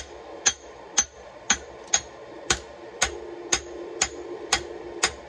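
Hand hammer striking a glowing bar of fossil Damascus steel on an anvil, about two blows a second, each with a short metallic ring, forging out a Bowie knife blade.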